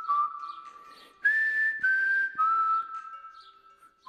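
A whistled tune of long held notes: after a first note fades, a higher note comes in about a second in and steps down in pitch over the next two seconds before fading away.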